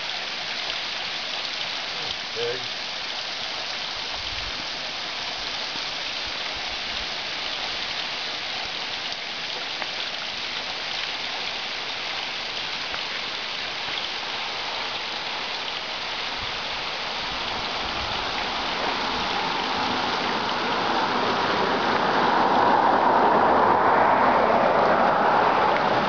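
Low-flow waterfall: thin streams of water dripping and trickling down a rock face and splashing into a shallow pool, a steady splashing hiss that grows louder over the last several seconds.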